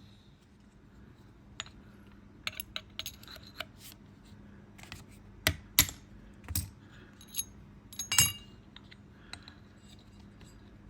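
Irregular clinks, taps and clicks of small metal parts and hand tools being handled while the radiator fan is taken apart, with a few louder knocks about halfway through and again near the end.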